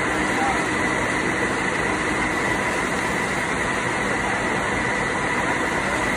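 Steady, loud industrial machinery din with a thin steady whine, unchanging throughout.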